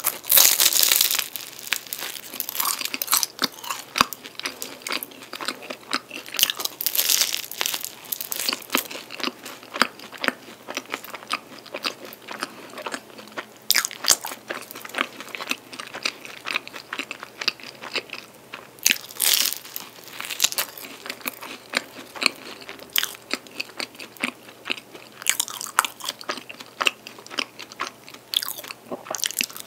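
Close-miked crunching and chewing of a flaky, cream-filled tiramisu pie: sharp crackling of the crisp pastry layers, with a louder burst of crunching at each new bite every five or six seconds.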